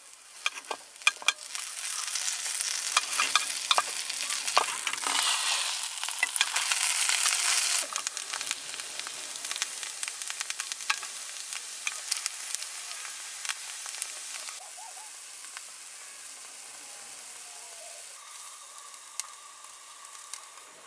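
Butter sizzling in a small aluminium mess tin over a gas canister stove as a scone warms in it, with chopsticks clicking against the tin. The sizzle is loudest in the first eight seconds, then eases to a quieter steady hiss.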